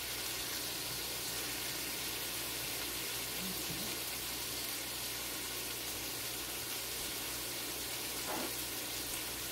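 Onions, peppers and chicken frying in a big skillet: a steady, even sizzle.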